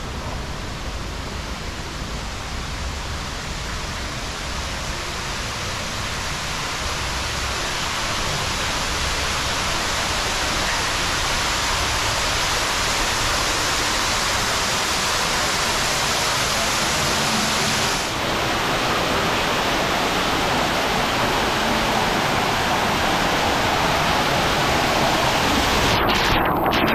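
Steady rush of water from indoor spa pool cascades, growing gradually louder, with water pouring and splashing into the pool near the end.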